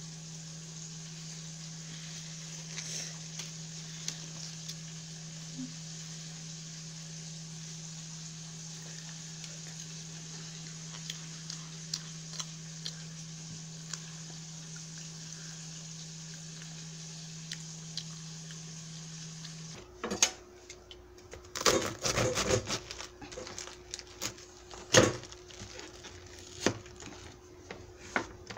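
A steady hiss over a low, constant hum, with a few faint ticks, for about twenty seconds. Then the hiss stops abruptly and a cabbage and kitchen knife are handled on a wooden cutting board: a string of knocks and clatters, loudest a couple of seconds later and again about five seconds in.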